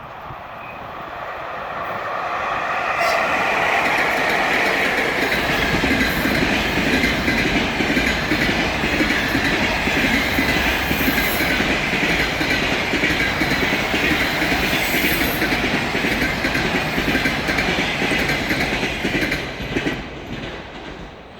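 Passenger train passing at speed, its wheels clattering over the rail joints. It builds up about three seconds in, stays loud, and fades near the end.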